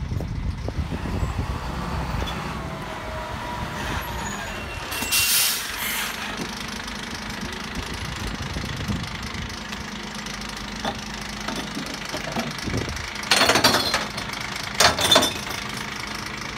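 Diesel engine of a glass recycling truck idling at the kerb, with a brief hiss about five seconds in and two short, louder noisy bursts near the end.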